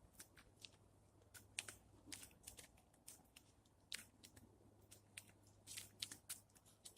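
Faint, irregular crunching and clicking: a few sharp clicks a second, uneven in spacing and strength.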